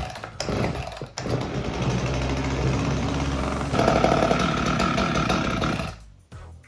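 Husqvarna 254 XPG two-stroke chainsaw starting after a couple of short pulls, then running steadily for about five seconds. It gets louder about four seconds in and stops near the end.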